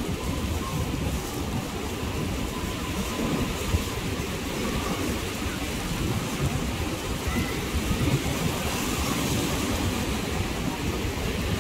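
Wind buffeting the phone's microphone in a continuous low rumble, over the wash of surf breaking on the beach.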